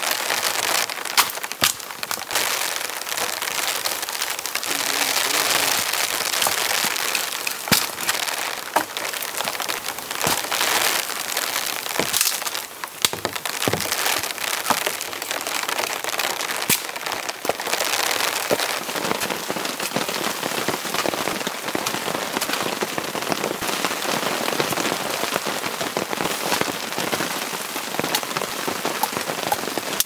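Steady heavy rain falling, with many sharp cracks and snaps scattered through it as wet branches are broken and dragged for firewood.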